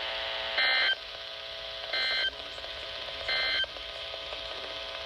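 Emergency Alert System end-of-message data tones: three short, shrill bursts of digital data tones about a second and a third apart, marking the end of the broadcast alert.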